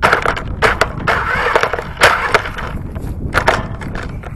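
Radio-controlled off-road car driving over dry grass and twigs: a sudden start, then uneven crunching and crackling with several sharp cracks.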